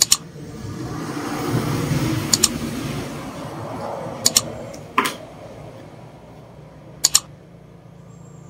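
A cardboard gift box being handled and opened: a rustling scrape of the lid sliding from about one to four seconds in. Sharp clicks come through it, mostly in quick pairs, about five times.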